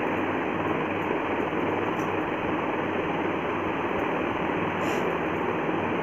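Steady background noise with no speech: an even hiss with a faint low hum underneath, unchanging throughout.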